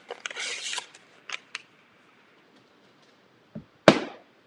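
Paper wrapper being peeled off a cardboard tube of refrigerated crescent-roll dough, with a few small clicks. Near the end comes a soft knock and then one sharp, loud pop as the can bursts open along its seam.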